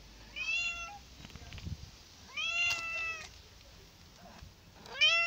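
Domestic cat meowing three times, about two seconds apart. Each meow rises at the start and then holds its pitch, and the third begins near the end.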